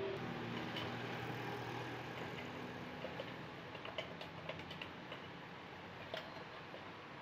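Metal ladle clinking against small aluminium pots in a few light, scattered taps, most of them about four and six seconds in, over steady background noise.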